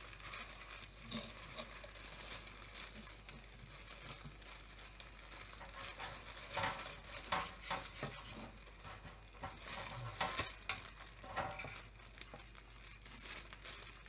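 Flour being shaken from a plastic bag into a plastic mixing bowl: a soft hiss with the bag rustling and crinkling, and a few light knocks, busiest about halfway through.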